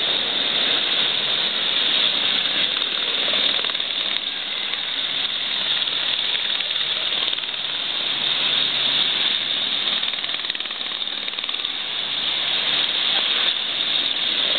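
Rescue helicopter hovering low over the surf, its rotor beating steadily, over the constant wash of breaking waves.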